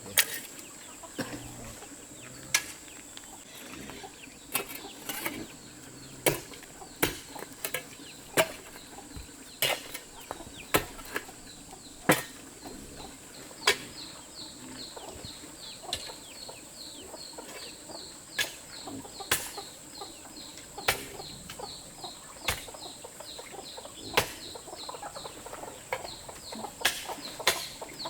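Chickens clucking and high peeping, the peeps coming in quick runs of short falling chirps from about halfway through. Sharp knocks or taps, the loudest sounds, land every second or so, with a steady high whine underneath.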